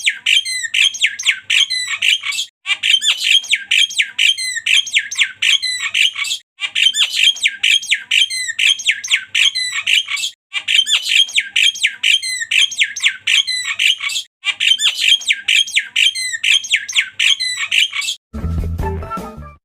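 Javan myna (jalak kebo) calling in rapid bursts of harsh, sharp notes, the 'tembakan' call, in phrases of about four seconds separated by brief pauses. Near the end a short low rumbling noise takes over before the sound cuts off.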